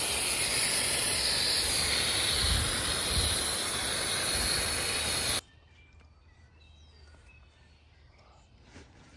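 Garden hose spraying water: a loud, steady hiss that cuts off suddenly about five seconds in, after which faint bird chirps sound over quiet outdoor background.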